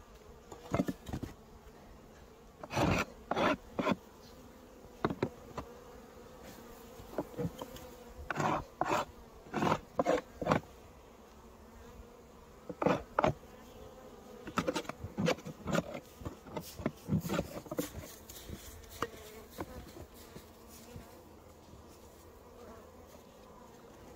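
Honeybees buzzing at the hive as a faint steady hum, under repeated short scrapes and knocks in clusters, typical of snow being dug and cleared from a beehive entrance.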